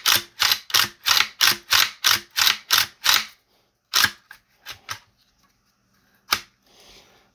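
A quick, even run of short scratchy strokes, about four a second, stopping about three seconds in, followed by a few separate light clicks.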